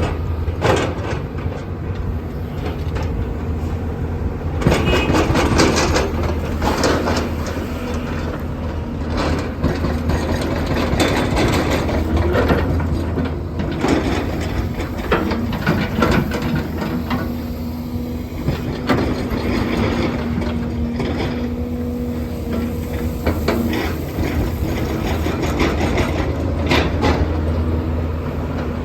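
Doosan excavator's diesel engine running steadily under load, with repeated irregular clanks and rattles of the bucket working loose asphalt millings. A steady whine comes in for several seconds past the middle.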